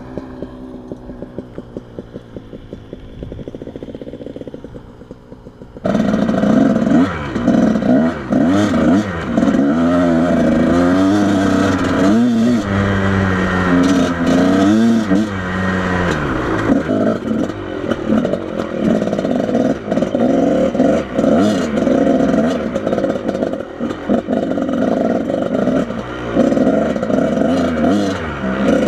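Off-road motorcycle engine ticking over with an even putter, then about six seconds in it is ridden off loudly, its pitch rising and falling as the throttle is worked over rough ground, with clattering and scrapes from the bike.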